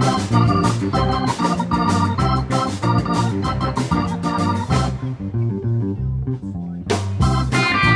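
Upbeat intro music: sustained organ-like keyboard chords over a steady, fast beat. The beat drops out for about two seconds past the middle, leaving the lower keyboard line, then comes back in.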